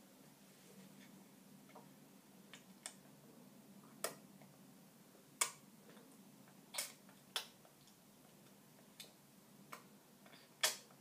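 Scattered sharp clicks and smacks, about ten at uneven spacing, as a baby eats puree off a plastic spoon, the loudest near the end.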